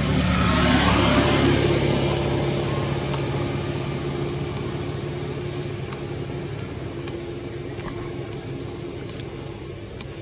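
A motor vehicle engine running, with a rush of noise that swells about a second in and then fades away, as of a vehicle passing by, with a few faint ticks.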